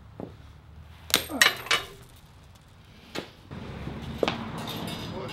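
Steel chains clinking and heavy metal clanking as a steel target plate is hung on a metal stand. There are three quick sharp clanks about a second in and two more near three and four seconds, with a steady noise underneath in the second half.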